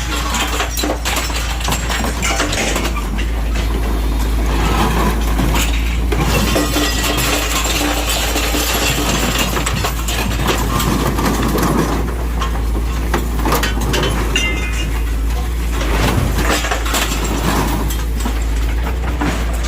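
Hydraulic excavator engine running steadily under load, with irregular metal crunching, creaking and glass breaking as its cutting shear bites into a truck cab.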